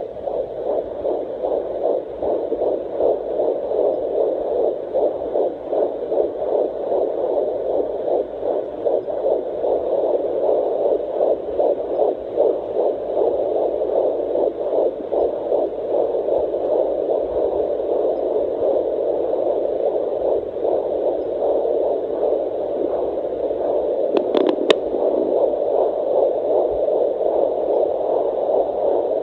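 Fetal heartbeat at 14 weeks picked up by a handheld fetal Doppler: a steady pulsing whoosh through the monitor's speaker. There is one brief click about 24 seconds in.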